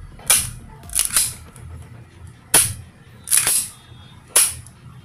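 Airsoft pistol shots: about seven sharp, high-pitched cracks, irregularly spaced, two of them in quick pairs, each setting off a shot timer's microphone.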